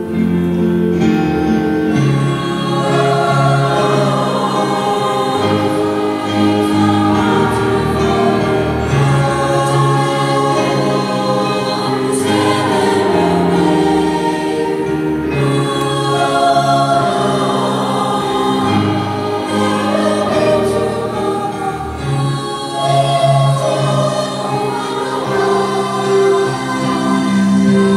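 Women's choir singing in harmony, mostly long held notes, with sustained low keyboard notes underneath.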